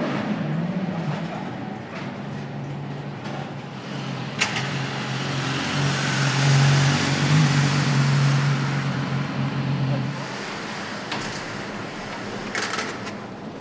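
BMW motorcycle engine running at a steady pitch as the bike is ridden past, swelling to its loudest around the middle and fading out about ten seconds in. A few sharp clicks follow near the end.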